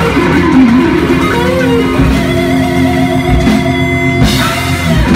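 Live rock band playing electric guitars through amplifiers in the closing bars of a song, with long held notes ringing out over a few drum hits near the end.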